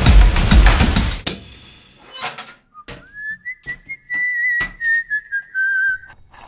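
Drum-backed music cuts off about a second in. After a pause and a few sharp clicks, a high whistle rises quickly onto one note and is held for about three seconds, wavering slightly and sliding a little lower near the end.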